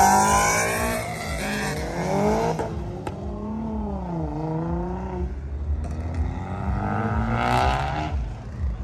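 Modified cars accelerating past one after another, their engine notes rising in pitch as each one revs up. A second car about four seconds in swells and then falls in pitch as it goes by, and a third revs up near the end.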